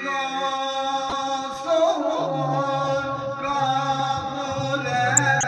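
Men's voices singing a slow chant into hand-held microphones, with long held notes that bend in pitch; a lower steady tone joins about two seconds in.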